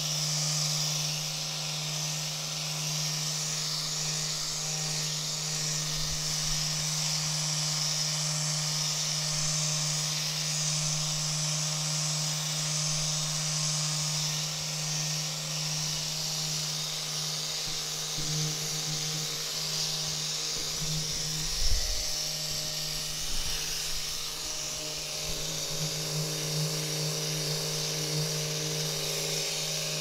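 Handheld rapid release therapy device vibrating very fast against a person's upper back and neck, giving a steady electric buzz. Its tone wavers a little about two-thirds of the way through, with a soft knock just before.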